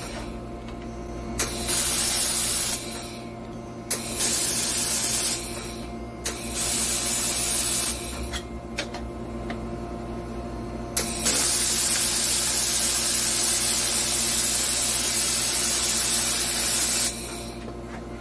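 Handheld 1500 W laser welder firing on 2 mm aluminium sheet in hissing bursts, each starting with a click: three short welds of about a second and a half, then one long weld of about six seconds starting about eleven seconds in. A steady machine hum runs underneath.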